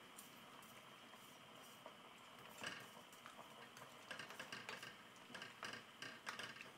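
Very faint light taps and clicks of a wooden spoon stirring spaghetti in a steel pot of boiling water, mostly from about four seconds in.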